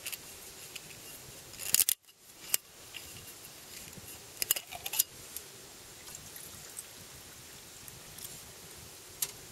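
Hot water poured from a kettle into a stainless steel mug, with a few sharp clinks and knocks as the kettle is handled over the cup.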